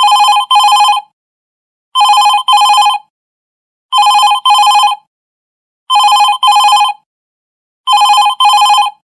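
Phone ringtone in a telephone-style double ring: two short two-tone rings in quick succession, repeating about every two seconds, five pairs in all.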